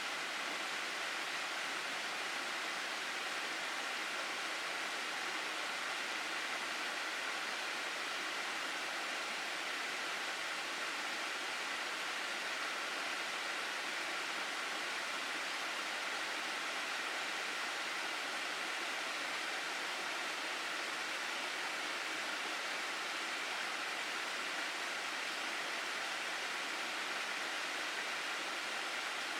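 Mountain stream water rushing steadily through a gorge: an unbroken, even wash of flowing water with no change from start to end.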